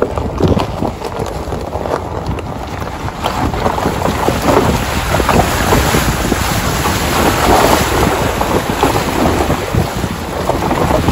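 Truck tyres crunching slowly over loose rock and gravel and rolling through a shallow puddle at about 3 miles an hour, with many small crackles and knocks, and wind rumbling on the microphone.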